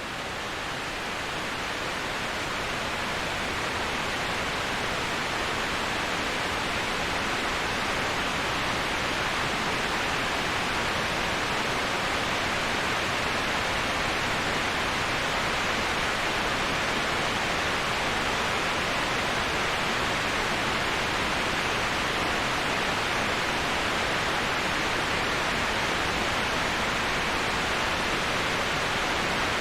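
Steady, even rushing of a waterfall, a constant hiss-like wash of falling water with no breaks, swelling slightly over the first few seconds before holding level.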